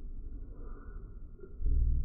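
Deep, slowed-down rumble with no clear source, swelling louder about one and a half seconds in.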